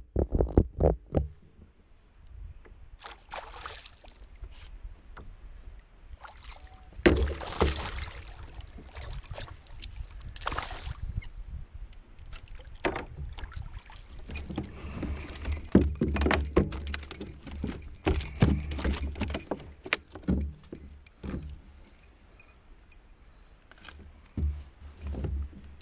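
Lake water slapping and splashing against a kayak hull in choppy water, with gusts of wind on the microphone and scattered knocks and rattles from the boat.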